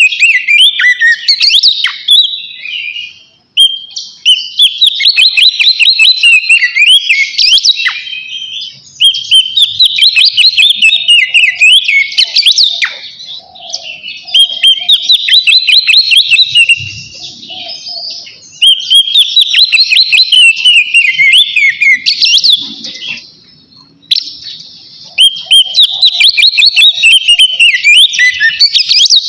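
Oriental magpie-robin singing loudly in long bouts of rapid, varied whistled phrases, broken by brief pauses every few seconds. This is its full 'ngeplong' song, the song it uses to call out a rival.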